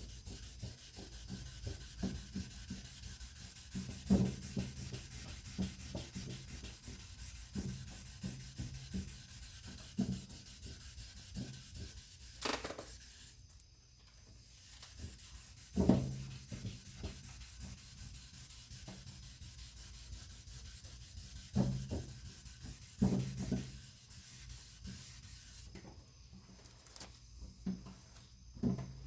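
Hand wet-sanding of car paint: sandpaper on a block rubbed back and forth in short strokes, about two a second. A few louder knocks and one sharp click come about halfway through.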